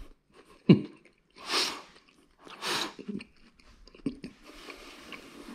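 Close-up chewing of a mouthful of grilled cheese sandwich on toasted bread, with a couple of short, hissy crunching sounds in the first three seconds.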